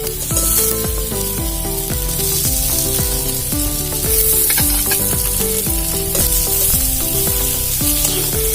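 Boiled, half-mashed potatoes and spice paste sizzling in oil in a kadai, with clicks of the spatula as they are stirred. Background music with a quick melody plays over it.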